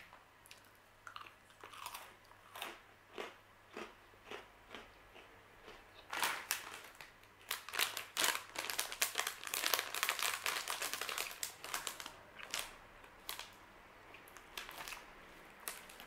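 Crisp rosemary protein schiacciatine crackers being chewed: a string of sharp crunches, sparse at first and much busier through the middle, mixed with the crinkle of the plastic snack packet being handled. The loud, clean crunch is the sign of a properly crispy cracker.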